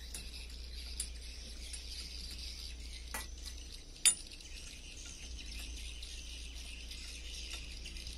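Metal clinks of tools and parts against a car's front wheel hub being worked on for a wheel-bearing replacement: a few light clinks and one sharp, loud clink about four seconds in.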